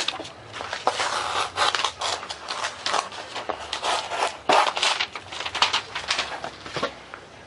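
Foam board and paper plans being handled and slid across a work surface: irregular scraping and rustling, some strokes louder than others.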